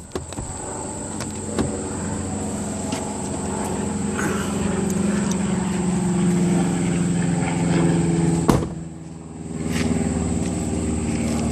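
Vehicle engine running steadily, as it would while towing a felled tree on a tight line. About eight and a half seconds in there is a sharp knock, the engine drops away for about a second, then it picks up again.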